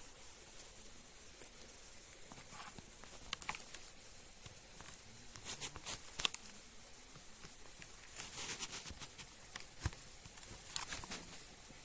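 Footsteps crunching on a loose mountain trail, coming in irregular clusters of short scuffs, over a steady faint high-pitched drone of night insects.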